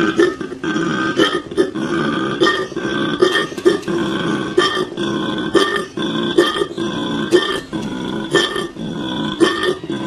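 Koala bellowing: one continuous low, rasping call made of rapid pulses, with louder peaks about every second. It is a territorial call.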